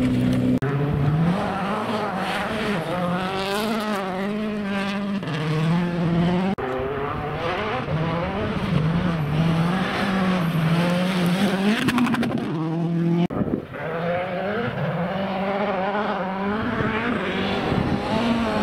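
Citroën C4 WRC rally car's turbocharged four-cylinder engine driven hard, its revs rising and falling quickly again and again as the driver works the throttle through the gears. The sound breaks off abruptly three times.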